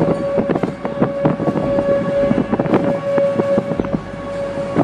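A tornado passing close by, its wind gusting hard on the microphone with a rumbling roar. A steady-pitched outdoor tornado warning siren sounds throughout.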